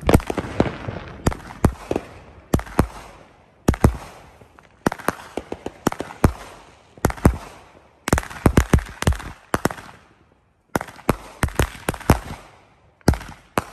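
A 16-shot consumer firework cake ('Brutus', Magnus Fireworks, 200 g class) firing, its tubes going off one after another as sharp shots and bursting reports. The shots come irregularly, a second or so apart, with two rapid clusters of reports in the second half and a short lull just after the middle.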